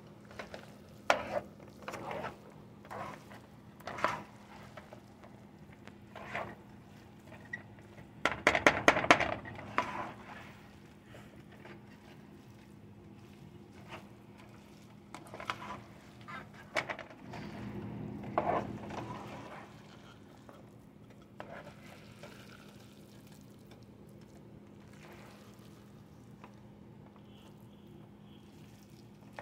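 Spatula scraping and knocking against a frying pan while stirring fried rice, in scattered strokes with a quick run of louder clattering about eight to ten seconds in. A steady low hum sits underneath.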